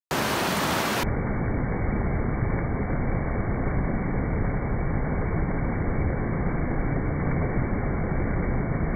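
River rapids rushing over and around boulders: a steady, unbroken wash of white water, heaviest in the low end.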